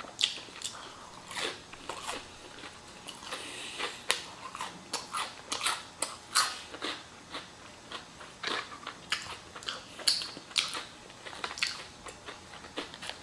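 Close-miked eating sounds: a person biting and chewing crispy fried chicken tenders, with repeated crunches and wet mouth noises at an irregular pace.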